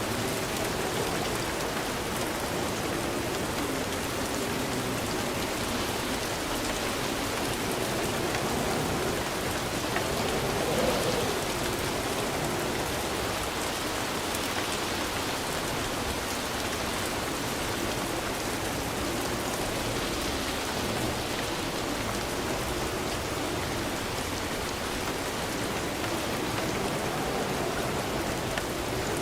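Steady rain falling and pattering on a surface, with a brief slight swell about ten seconds in.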